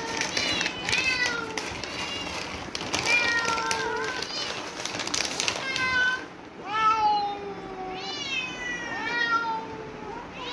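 Several cats meowing over and over, short rising-and-falling meows about one a second, some overlapping.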